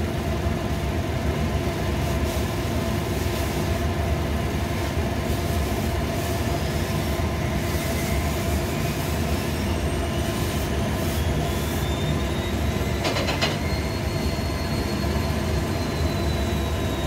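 Steady mechanical rumble and hum of household appliance motors running. A faint whine slowly rises and falls through the middle, and a brief rattle of clicks comes about 13 seconds in.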